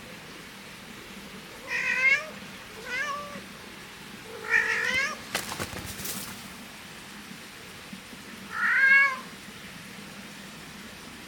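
A cat meowing four times in short calls, three close together and the last after a longer pause. A few sharp clicks come just after the third meow, over a steady hiss.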